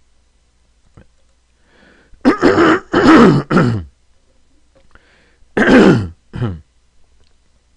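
A man clearing his throat twice: first three short rasping pushes, then a shorter clearing of two.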